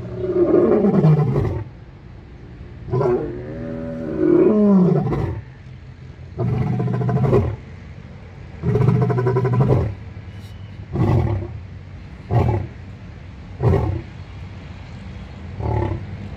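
Male white lion roaring in a full bout. It gives four long, loud roars about every two and a half seconds, the first two sliding down in pitch, then a run of four short grunting calls that taper off.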